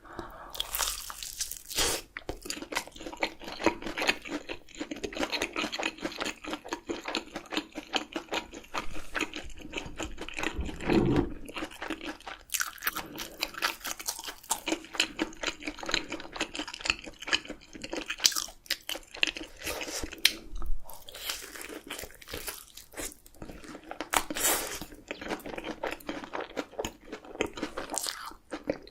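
A person chewing and crunching food close to the microphone, with wet mouth sounds and repeated louder crunches from bites.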